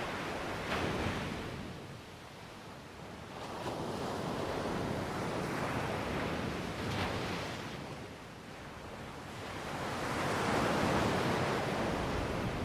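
Ocean surf of the Gulf of California: waves breaking and washing in, the rush swelling and fading about every four to five seconds.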